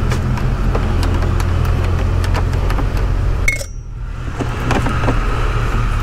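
Steady low rumble, with scattered light clicks and taps of a socket ratchet working the bolts along a car's front bumper support. Just past halfway the sound drops out briefly, then returns.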